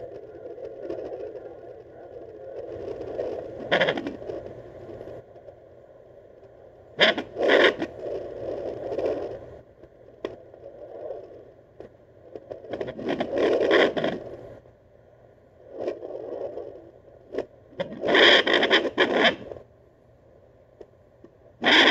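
Handheld fetal doppler's speaker putting out a scratchy, whooshing noise as the probe is moved over a pregnant dog's belly in search of puppy heartbeats, with several louder, irregular scraping bursts.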